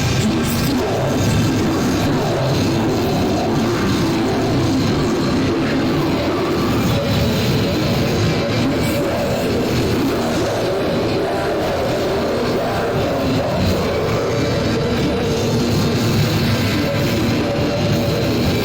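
Loud, dense, distorted extreme-metal music mixing black, death, grind and industrial noise, with guitars, bass and drums in a steady, unbroken wall of sound.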